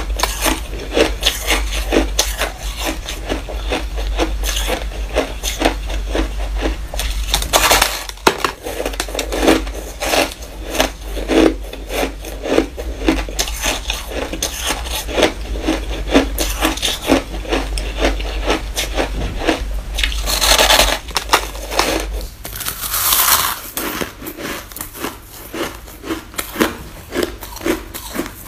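Close-up crunching and chewing of fluffy white snow ice, a quick, uneven run of crunches several times a second as the ice is bitten and ground between the teeth.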